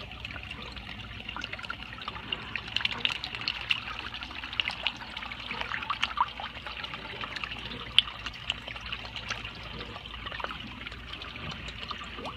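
Water trickling and splashing steadily into an aquaponics fish tank from the pump's return pipe, with many small droplet plinks on the surface. One sharp click about two-thirds of the way through.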